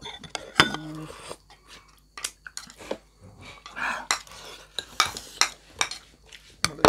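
Utensils clinking and scraping against plates and bowls, with chewing, during fast eating of large momos.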